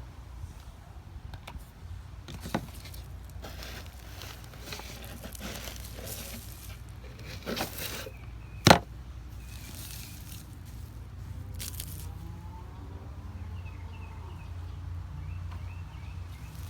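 Hands sifting through loose potting soil from a dumped potato container: scattered rustling, scraping and crackling, with a sharp knock a little past halfway, the loudest sound. A steady low rumble runs underneath.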